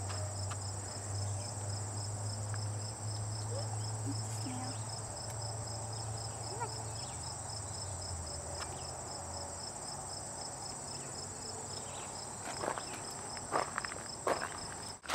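Crickets and other insects chirring in the grass: a steady high-pitched drone with a regular pulsing chirp, a few chirps a second. A few short scuffs come near the end.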